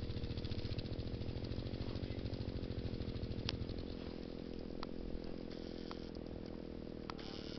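Loaded adventure motorcycle's engine running at low revs as the bike rolls slowly across grass, with a fast low pulse that eases off about four seconds in. A few sharp ticks sound over it.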